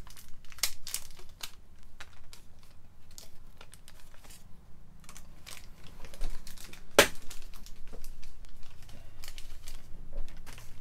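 Thin clear plastic bag crinkling and crackling by hand as a rooted begonia plug is unwrapped from it, in irregular bursts, with one sharp loud crackle about seven seconds in.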